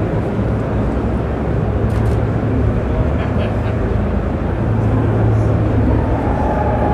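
Loud, steady din of a crowded exhibition hall, with a deep steady hum underneath that swells slightly past the middle, and a few faint clicks.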